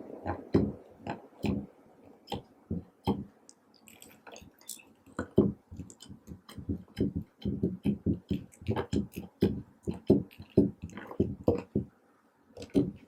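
Slime being mixed by hand: an irregular run of short wet squelches and sticky clicks, a few each second, with a brief pause near the end.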